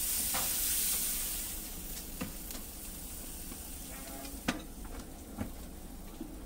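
Water sprayed onto a hot pan of green onion pancakes hissing and sizzling into steam, the hiss fading after the first second or two. A few light metal knocks follow, the loudest about four and a half seconds in, as the pan's hinged lid is lowered.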